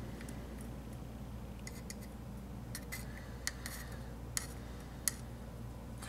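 Thin metal tool scraping and clicking against a laptop heat sink's metal cooling fins as a packed mat of dust is pried out of them, with a few sharp ticks in the second half. The fins are clogged solid with dust, the cause of the overheating and the loud fan.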